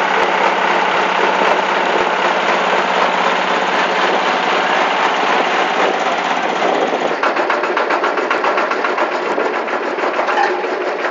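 Oil-palm frond and leaf chopper machine running, its engine holding a steady hum; about seven seconds in the sound changes to a fast, even chatter.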